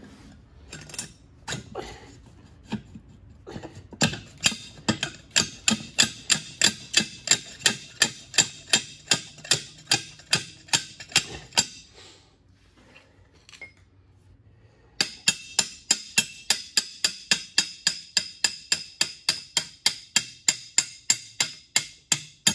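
Hammer tapping the hinge shaft out through a 12-inch double-door check valve. There are a few scattered blows at first, then steady, ringing metal-on-metal strikes about three a second, which stop for about three seconds midway and then resume.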